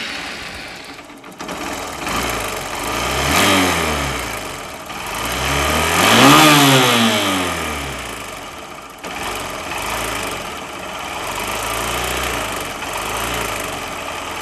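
Hero Hunk 150R single-cylinder motorcycle engine idling and revved up and down several times, the highest rev about six seconds in, with a rattling 'jhanjhar' noise from inside the engine. This top-end rattle persists although the cam, rockers, timing chain and tensioner have been replaced twice.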